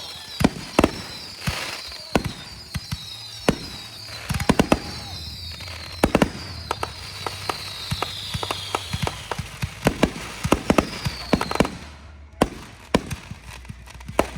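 Backyard consumer fireworks going off in quick succession: sharp bangs and pops throughout, with many short falling whistles for most of the first eleven seconds and a brief lull about twelve seconds in. It is a finale going off early, which the speaker says something set off by accident.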